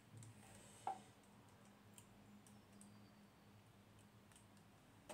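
Near silence with a few faint clicks and taps of a metal spoon against a plastic yoghurt tub and blender cup as yoghurt is scooped, one slightly louder about a second in.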